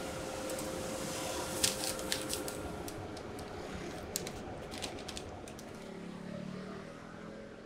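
Light clicks and taps of plastic tongs and a paper bun wrapper being handled, in two short clusters, over steady background noise.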